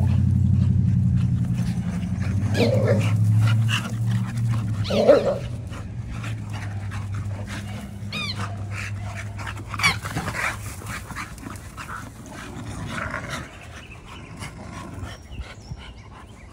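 Dogs playing at a water tub, giving a few short barks and high, whining yips. A low steady hum carries through the first five seconds or so.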